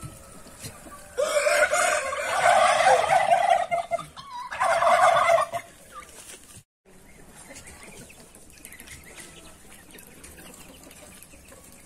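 Domestic turkey toms in display, tails fanned, gobbling: two loud rattling bouts, the first about a second in and lasting nearly three seconds, the second shorter, at about four and a half seconds.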